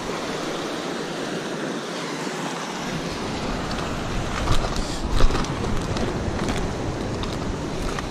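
Surf breaking against a rocky shore, with wind on the microphone: a steady rushing noise, with a low rumble coming in about three seconds in. From about four and a half seconds in, several short sharp knocks and scrapes sound over it.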